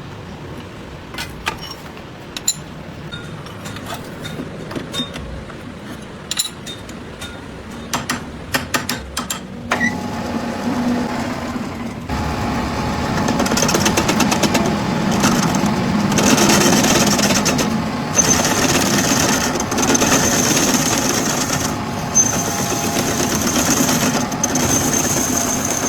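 A series of sharp metallic taps and clicks. Then, about ten seconds in, a machine starts running steadily with a high whine, growing louder a couple of seconds later.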